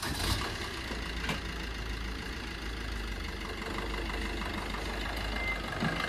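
Maruti Suzuki Vitara Brezza's engine running steadily at idle, with a constant low hum.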